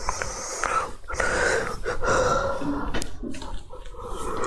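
Breathy vocal noise from a person close to the microphone: loud, airy breathing or murmuring without clear words.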